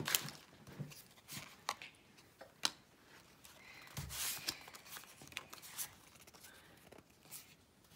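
Pokémon trading cards being handled on a tabletop: scattered soft rustles and light taps, with a slightly longer, louder rustle about four seconds in.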